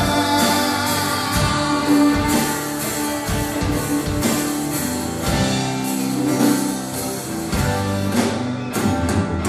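Live band playing: strummed acoustic guitars and electric guitars over bass and a drum kit keeping a steady beat.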